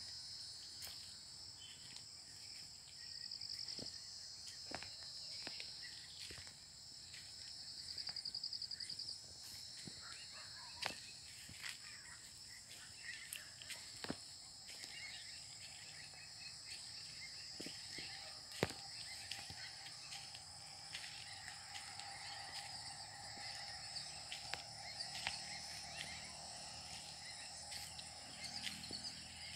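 Insects chirping in a steady high-pitched chorus, with louder pulsing trills about three and eight seconds in. Scattered short clicks and knocks run through it.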